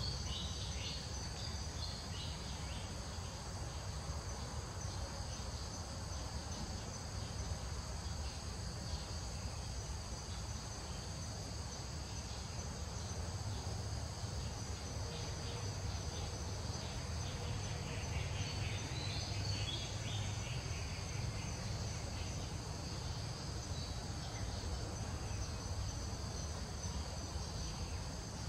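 A continuous high-pitched insect chorus buzzing steadily, with a low rumble underneath.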